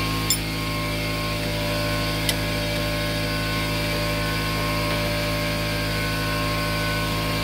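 A steady machine hum made of several even tones, with two sharp metallic clicks about two seconds apart as a wrench is fitted onto a car's sway bar link nut.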